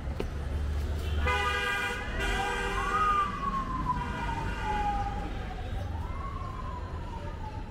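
A vehicle siren wailing: one tone rising to a peak about three seconds in, falling slowly, then rising and falling again. A horn with several steady tones blares for about two seconds starting a second in, and again briefly around four seconds, over a low traffic rumble.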